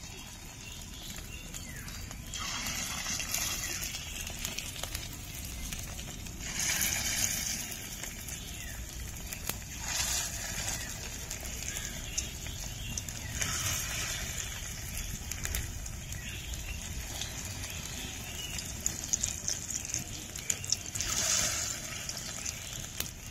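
Fish-roe fritter batter (roe, gram flour and egg) frying in hot oil in a kadai: a steady sizzle that swells several times as more spoonfuls are dropped in, with light crackling.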